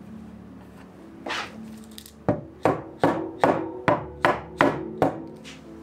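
A run of about eight sharp knocks in a steady rhythm, roughly two and a half a second, starting about two seconds in, over soft background music.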